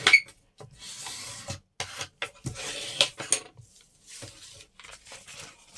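Paper and tape being handled and rubbed down by hand: several separate scratchy rubbing strokes, with a sharp click right at the start.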